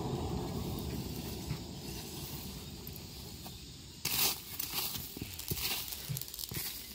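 Steady low rumble of the charcoal forge's air blast fading away, then about four seconds in a sudden burst of scraping and crunching as the red-hot golok blade is pulled out through the charcoal with tongs, followed by scattered clinks of shifting coals.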